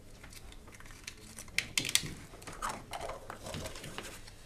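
Small plastic draw balls being twisted open, with a quick run of sharp clicks about two seconds in, and folded paper slips rustling as they are pulled out and unfolded.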